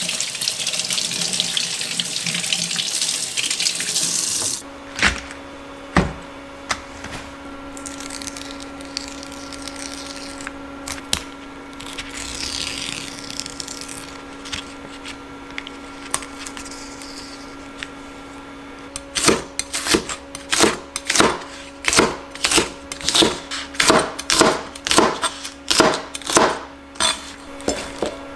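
Kitchen tap running onto a bitter melon being rinsed in a stainless steel sink, cutting off about four and a half seconds in. After a few knocks from handling, a knife chops winged bean pods on a plastic cutting board from about two-thirds of the way through, roughly two cuts a second.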